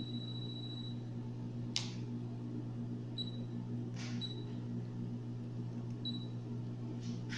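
E-Pex Pro electronic apex locator. Its steady high-pitched alarm tone, which signals a reading at or past the apex, cuts off about a second in. Then the device's buttons are pressed, giving three sharp clicks and three short high beeps, over a steady low hum.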